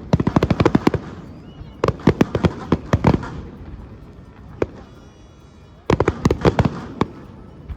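Fireworks going off in volleys of rapid sharp cracks and bangs. There are three crackling bursts: at the start, about two seconds in, and about six seconds in, with a single bang in the lull between.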